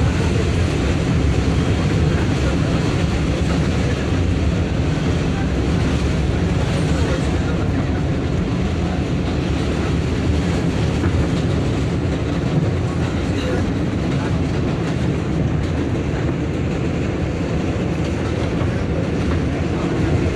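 Steady running noise inside a moving New York City 7-train subway car: wheels on the track and the car's own rattle, with a few faint clicks.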